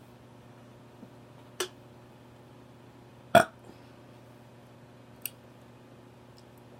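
A few short, sharp burps, the loudest about halfway through.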